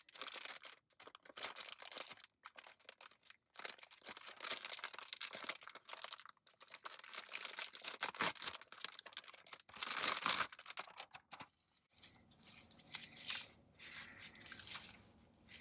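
Irregular rustling and crinkling of clothes being rummaged through and a shirt being pulled on, inside a car.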